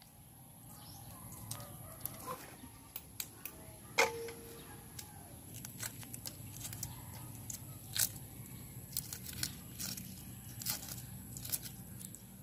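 Boiled eggshells cracking and being peeled off by hand, an irregular run of small crackling clicks. About four seconds in comes a sharper tap with a short ringing note from the aluminium basin.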